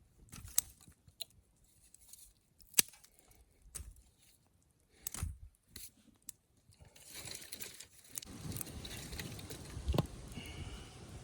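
Scattered sharp clicks and knocks, then steady rustling from about seven seconds in, with a louder knock near the end.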